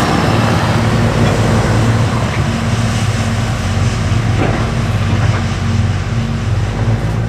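Heavy diesel farm machinery running steadily at work, its low engine hum under a broad mechanical noise, easing off slightly near the end.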